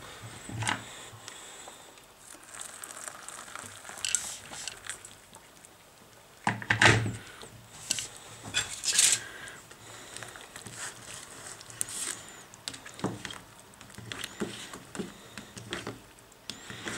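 Metal spoon stirring and scraping instant mashed potato in a plastic cup: scattered scrapes and clicks against the cup, the loudest about 7 and 9 seconds in.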